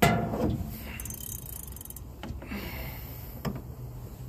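A sudden loud knock at the start, then rapid mechanical clicking and rattling, with a few short knocks later.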